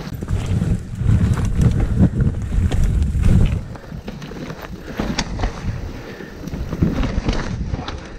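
Wind buffeting the microphone as a mountain bike is ridden down a rough trail, with frequent sharp clicks and knocks from the bike and its tyres over the ground. The rumble eases for a couple of seconds in the middle.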